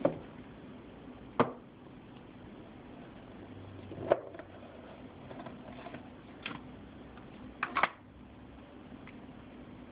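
Cardboard phone box being handled and opened: sharp knocks and taps of the box, lid and inner tray on the table every second or two, a pair close together near the end, over a steady low hum.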